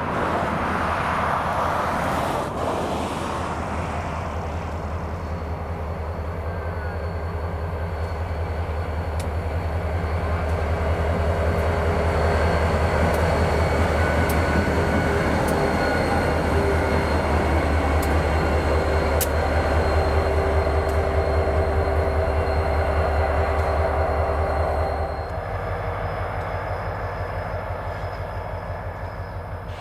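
EMD SD40-2XR diesel locomotive, a 16-cylinder turbocharged EMD 645, running alone past close by. Its deep pulsing engine drone grows louder as it passes, with a steady high whine and a few sharp clicks over it. The sound drops suddenly near the end to a fainter drone.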